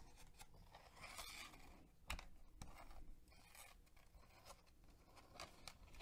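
Faint rustling and sliding of paper pages as a sticker activity book is leafed through, with a single sharp tap about two seconds in.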